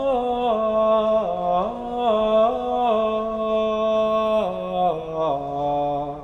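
A single voice slowly chanting the Mass Offertory psalm verse, drawing one syllable out over long held notes that step up and down, stepping lower near the end.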